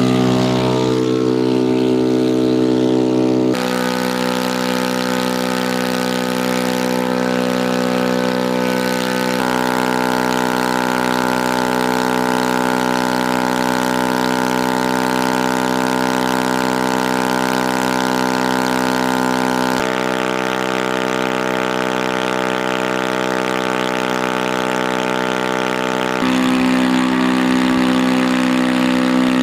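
An engine running steadily at idle, a smooth unbroken drone whose tone shifts abruptly a few times.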